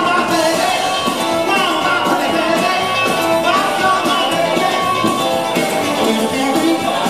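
Live rockabilly band playing, with a male lead vocal over electric guitar, upright double bass and drums, heard from the audience in a hall.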